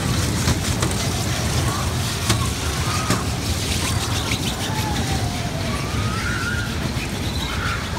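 Steady din of a busy indoor amusement room: the low hum of the kiddie car ride and games, with scattered faint clicks and a few faint gliding electronic tones.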